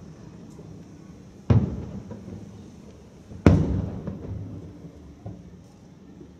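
Two booms from aerial firework shells bursting, about two seconds apart, each followed by a long rumbling echo that dies away.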